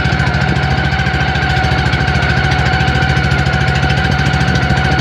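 Small engine of a motorized outrigger boat running steadily under way: a rapid, even chugging with a steady whine above it.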